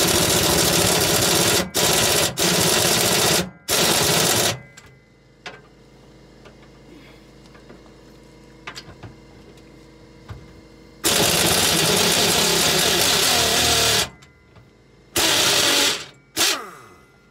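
Pneumatic impact wrench hammering on a rusted gear-shift lever mounting bolt in several loud bursts: a run of bursts over the first four or so seconds, a pause, then a three-second burst and two shorter ones near the end, the last winding down. The bolt only spins: the owner thinks its threads have stripped.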